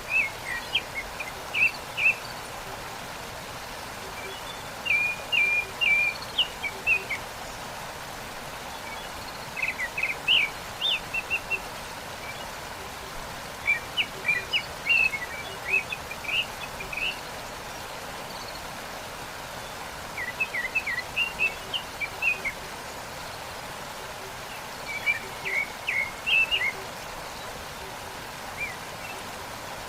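Steady rushing of a waterfall, with a songbird singing a short phrase of quick chirps about every four to five seconds.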